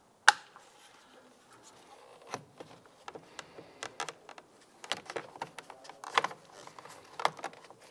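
Scattered plastic clicks and light knocks as a truck's door switch panel is handled and fitted into the door trim panel, with one sharp click about a third of a second in.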